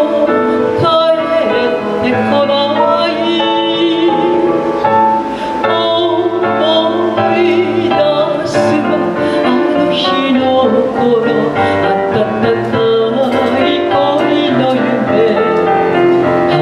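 Female chanson singer singing live into a handheld microphone over an instrumental backing, with sustained notes and a steady bass line.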